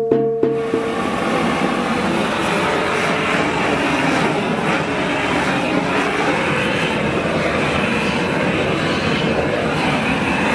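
Hammer taps on a tuned handpan note, each one ringing, stop about half a second in. After that a steady, loud rushing noise takes over.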